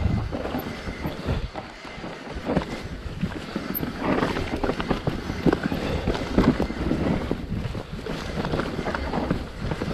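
Mountain bike riding over a rough dirt trail: a steady rush of tyre noise with irregular knocks and rattles from the bike, and wind buffeting the microphone.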